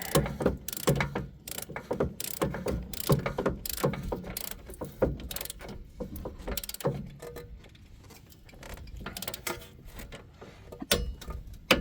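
Clicker-type torque wrench ratcheting on a rear hub bolt in rapid bursts of clicks with short pauses, quieter for a few seconds in the middle. Near the end comes one sharp click: the wrench breaking over at its set torque, meaning the bolt is fully tightened.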